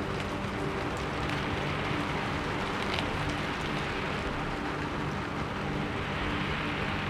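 Steady rain, with soft background music of low held notes underneath.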